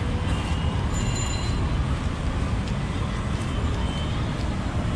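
Steady rumble of busy city street traffic.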